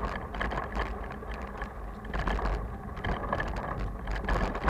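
Loaded touring bicycle riding along a rough dirt singletrack: tyres crunching on the dirt and the bike and its bags rattling with irregular knocks, over a steady low rumble.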